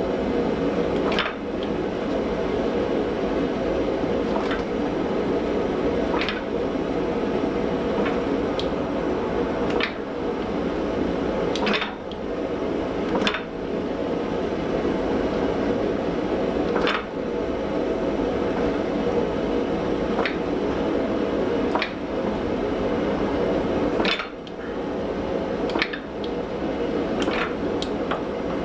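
Hand-swung fly press pressing a red-hot steel bar held in tongs: a dozen or so sharp metallic clunks at uneven intervals of one to three seconds as the ram comes down on the hot steel, over a steady drone.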